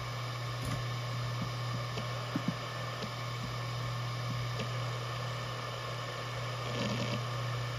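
Maxtor DiamondMax 17 160GB 7200 RPM hard drive spinning with a steady low hum and buzz, normal for this model, with a few faint clicks, two of them close together about two and a half seconds in.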